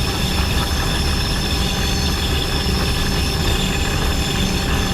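Diesel locomotive's engine running steadily: a constant low drone with steady higher whines over it.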